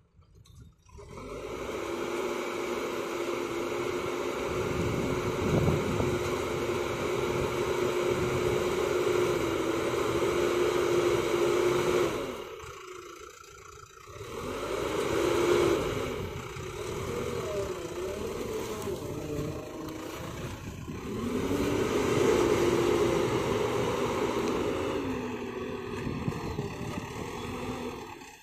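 JCB backhoe loader's diesel engine running hard under load, revving up and easing off as the machine works. It drops back sharply about halfway through, then revs up again twice and eases off near the end.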